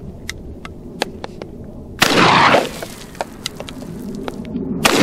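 Two shots from a 12-gauge double-barrel shotgun loaded with mini shells, about three seconds apart: one about two seconds in and one near the end. Faint sharp clicks come between them.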